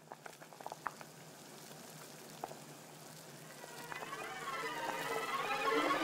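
A pot of water boiling, with scattered pops and bubbling over a low steady hum. In the second half a wavering tone rises and swells louder.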